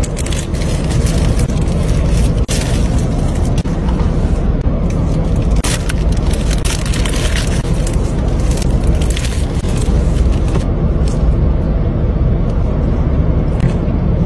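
Steady low rumble inside a car cabin. For about the first ten seconds there are dense crackly rustling sounds and clicks on top, and these thin out afterwards.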